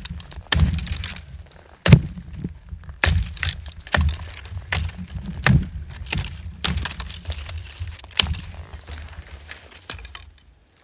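Footsteps on dry forest ground: an irregular series of sharp cracks and thuds, as of twigs snapping underfoot, over a steady low rumble on the microphone.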